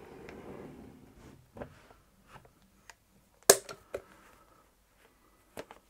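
Clicks and clacks from a hand caulking gun being handled and squeezed, the loudest a sharp clack about three and a half seconds in, after a soft rustling in the first second.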